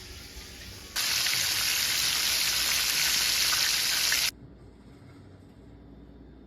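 Kitchen tap running into the sink: a steady hiss that becomes much louder about a second in and cuts off abruptly a little past four seconds, leaving only a faint hiss.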